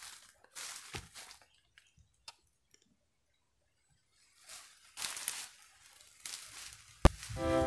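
A few short crunching rustles of dry leaves, with quiet in between. Near the end comes a sharp click, then ukulele music starts.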